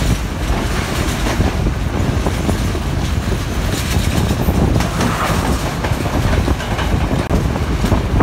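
Train running on the rails: a steady, loud rumble with the clatter of wheels over the track.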